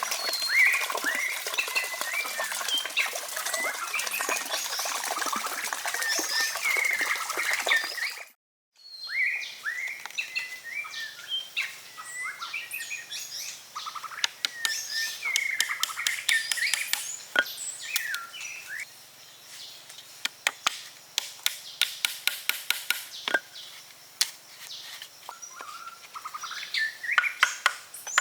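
Wild birds chirping and calling, with many short, quick calls. The sound drops out briefly about a third of the way in. In the later part, runs of sharp clicks or taps sound alongside the birds.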